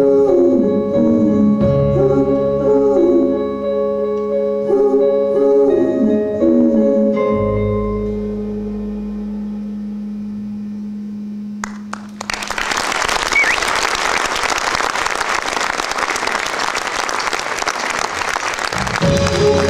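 A live band's song ends on long held notes that slowly fade, then the audience applauds for about seven seconds. The band starts playing again near the end.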